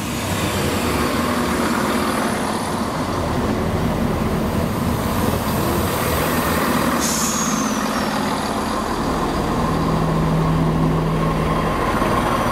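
Three-coach diesel multiple unit running alongside the platform, its engines giving a steady low drone, with a brief high squeal that falls in pitch about seven seconds in.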